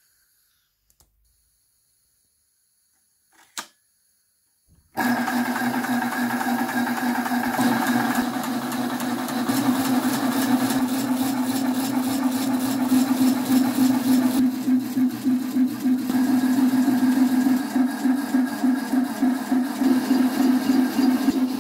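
A faint click, then a sharp click about three and a half seconds in. About five seconds in, a homemade two-piston high-pressure PCP air compressor with an electric motor starts abruptly. It runs steadily with a fast, even pulse, pumping air into a connected air bottle.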